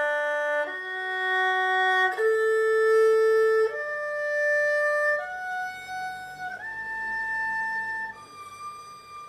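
Erhu playing a slow broken-chord arpeggio exercise: single bowed notes, each held about a second and a half, climbing note by note through the chord over two octaves and turning back down near the end.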